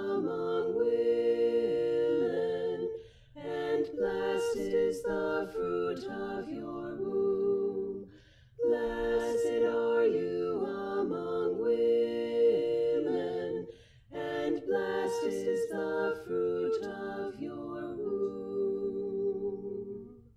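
A cappella choral singing by one woman's overdubbed voices in layered harmony. Four sung phrases with short breaths between them end on a long held final chord that fades out.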